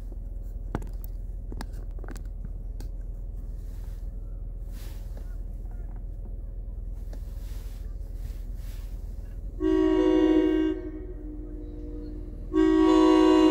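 Approaching commuter train sounding its chord horn twice near the end, two blasts of about a second each, roughly three seconds apart. This is the opening of the horn signal for a grade crossing.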